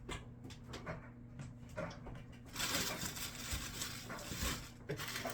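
Rummaging through a freezer: scattered small knocks and clicks, then about two seconds of rustling hiss from about two and a half seconds in, over a low steady hum.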